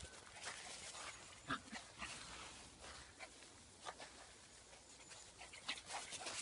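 Border terrier digging in loose sand and gravel: its paws scrape in short, irregular bursts, with the dog panting.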